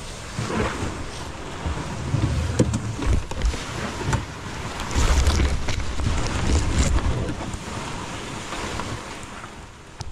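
Plastic kayak being dragged over dry grass and through brush, its hull scraping and swishing with sharp ticks of twigs against it. Low rumbling bumps and wind on the microphone come and go, heaviest around the middle.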